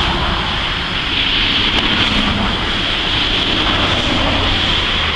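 Steady noise of highway traffic going by, mixed with wind on the microphone, over a constant high-pitched hiss.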